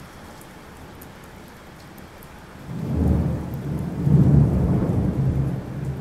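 A loud, low rumble starts suddenly about three seconds in and lasts about three seconds, over a faint steady hiss.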